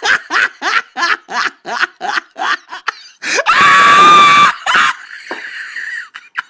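A person laughing in breathy, wheezing bursts about three times a second, then letting out one loud, high scream lasting over a second. A fainter breathy hiss follows.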